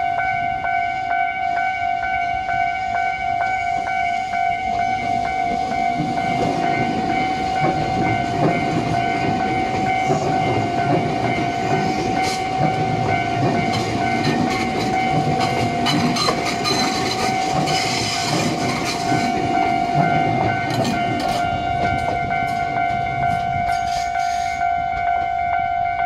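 Level crossing warning bell ringing steadily as a Tobu 200 series limited express pulls out past it. From about six seconds in, the train's wheels rumble louder, then clack over the rail joints and points, with the clacking thickest in the second half.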